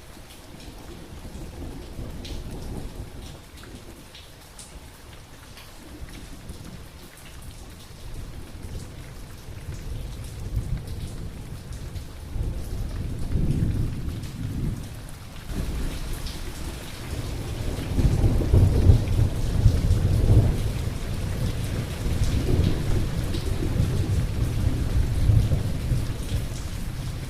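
Thunderstorm: steady rain with rolling thunder that builds up about a third of the way in and grows loudest in the second half, with a deep rumble.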